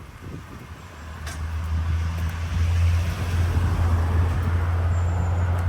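A motor vehicle's engine running with a low, steady hum, growing louder from about a second in and then holding steady.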